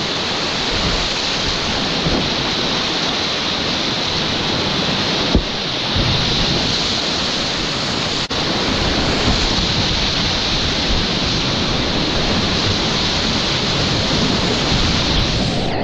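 Whitewater rapid rushing loudly and steadily, heard close up from a kayak in the current. A single short thump about five seconds in.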